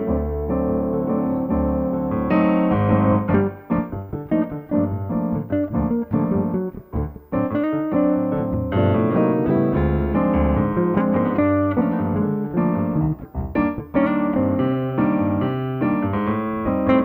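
Bossa nova played as a duo on a Kawai MP4 digital stage piano and a hollow-body archtop jazz guitar, with chords and melody together and the piano to the fore. The playing thins out briefly a few times.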